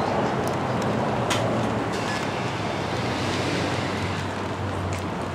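Steady outdoor noise of traffic and wind on the microphone, with a low steady hum underneath and a few faint clicks.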